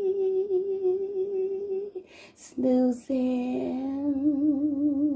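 A woman humming long held notes with vibrato: one steady note, a short break about two seconds in, then a lower held note whose wavering grows.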